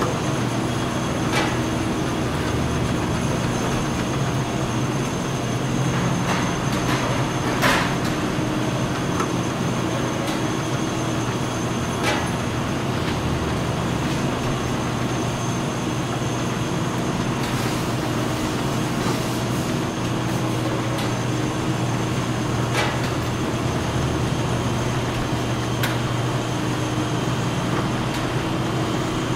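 Bottling-line machinery running with a steady mechanical hum and hiss, broken by a few scattered sharp clicks.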